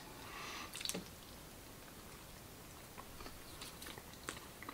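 Faint chewing of doughnut: a few small, scattered mouth clicks over quiet room tone.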